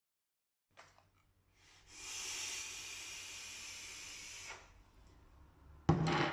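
A long breathy hiss lasting under three seconds, like a person blowing out a breath, followed near the end by a sudden thump.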